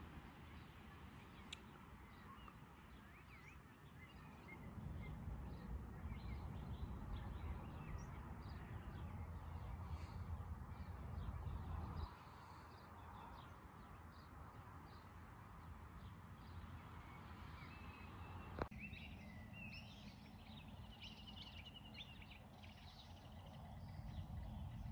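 Faint bush ambience: scattered bird chirps and calls throughout, with a run of quick repeated notes in the last few seconds, over a low wind rumble on the microphone that is strongest in the first half and drops away suddenly about 12 seconds in. A single sharp click comes about three-quarters of the way through.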